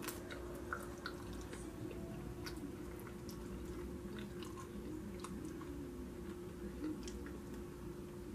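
A person chewing and biting barbecued ribs, eating with the fingers: scattered short wet smacks and clicks of mouth and meat, over a faint steady hum.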